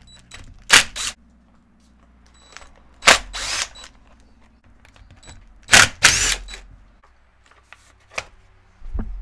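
Cordless impact driver run in short bursts, in three pairs, backing out the bolts that hold the plastic fork guard on a motocross fork lower. A couple of lighter knocks near the end.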